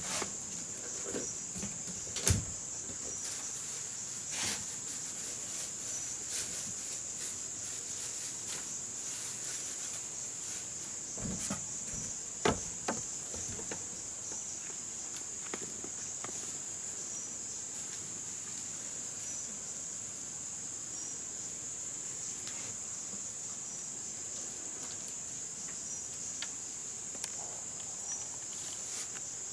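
Steady high-pitched chorus of insects such as crickets, with a few sharp knocks and clicks over it, the loudest about two seconds in and again around twelve seconds in.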